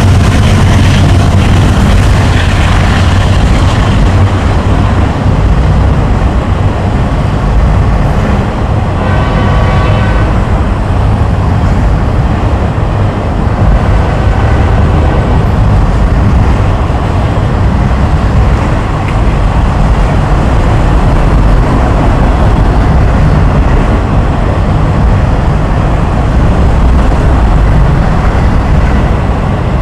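Long freight train of autorack cars rolling past close by: a loud, steady rumble of steel wheels on rail. About nine seconds in there is a brief high ringing tone.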